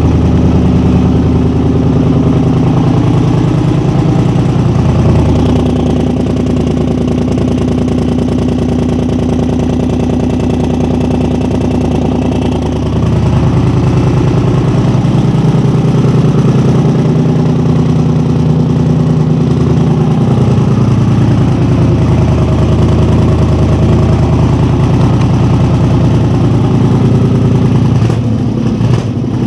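2010 Polaris Sportsman 850 XP ATV's twin-cylinder engine running loud, its pitch shifting between steady speeds a few times. The exhaust is blown out where the L-shaped pipe bend meets the header, which gives it a nearly straight-piped sound.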